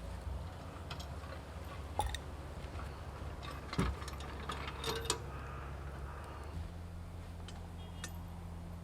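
Campfire crackling: scattered sharp snaps and ticks, a few louder ones about two, four and five seconds in, over a steady low rumble.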